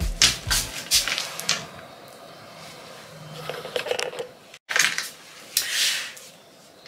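Background music cutting off within the first second, then scattered rustles and light knocks of the camera being handled up close, with a sudden edit cut of silence a little before five seconds in.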